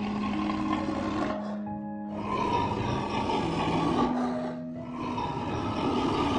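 Background music of sustained notes, overlaid by three long, harsh animal calls in a row, each lasting about two seconds with short breaks between them.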